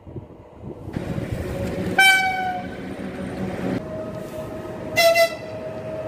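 Train horns sounding the Rp1 attention signal twice. First comes a single blast about two seconds in, over the rumble of a passing train. Then, about five seconds in, a shorter blast from a PKP Intercity ED161 Dart electric multiple unit sounds over a steady electric whine.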